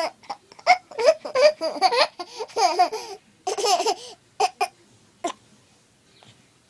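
A toddler laughing in a run of short, pitched bursts that stops about five seconds in.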